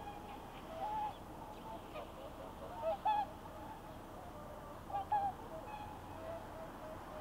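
Swans calling on the water: short honking calls from several birds, scattered and overlapping, with the loudest ones in quick pairs about three and five seconds in.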